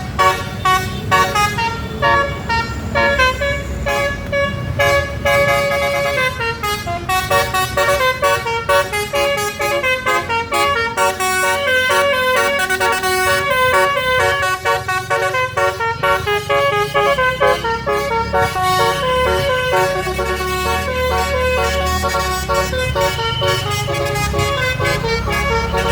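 Bus telolet horn, a multi-tone "basuri" horn, playing a long, fast melody of short notes, with the bus engine running underneath.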